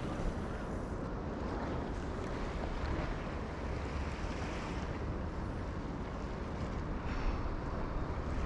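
Steady rushing noise of sea wind buffeting the microphone, mixed with the wash of waves.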